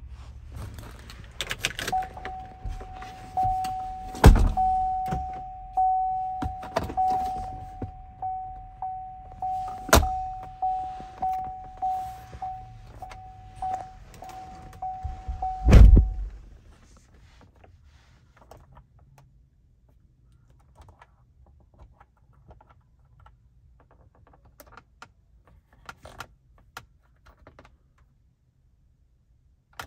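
A truck cab's warning chime pings steadily at a single pitch for about fourteen seconds, with keys jangling and several heavy thumps; the chime stops right after the loudest thump. Then come faint plastic clicks of the dashboard radio buttons being pressed.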